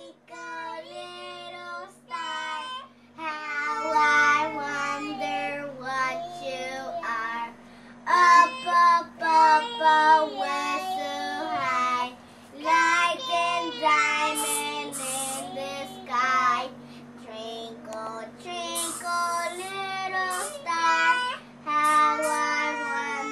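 A young girl singing a song on her own, with no instruments, in phrases with held notes and short pauses between them. A faint steady hum runs underneath.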